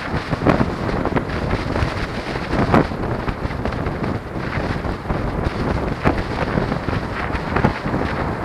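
Wind buffeting the microphone of a camera on a moving two-wheeler, over a steady road rumble, with a few sharp knocks.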